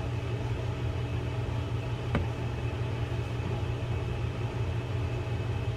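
Steady low hum with a single small metallic click about two seconds in, as a pick works at a spring E-clip on a Newell 235-5 reel's plate.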